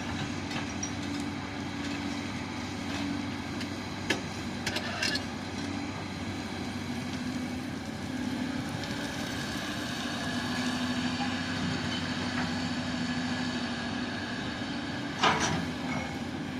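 Heavy-equipment diesel engine, most likely an excavator's, running steadily with a wavering hum. A few sharp metallic clanks come about four to five seconds in and again near the end.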